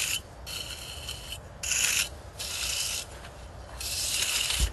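Small pointed steel trowel scraping over a fresh earth-and-plaster wall render in a series of short strokes with brief pauses, smoothing and closing its surface.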